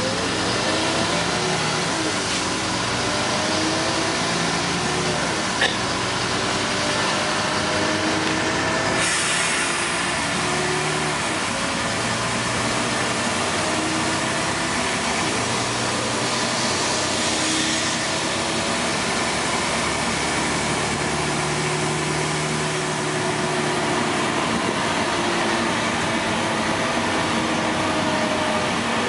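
Passenger-cabin sound of a LiAZ 5292.22 city bus driving: its diesel engine running with the pitch rising and falling as it pulls away and shifts, over steady road noise. A single brief click comes about six seconds in.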